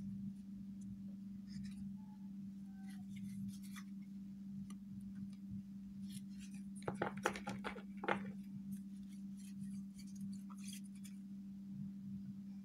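Faint handling sounds of a stack of small printed cards being shuffled and sorted into a plastic crate: light scattered clicks and taps, with a short cluster of sharper clicks about seven seconds in, over a steady low hum.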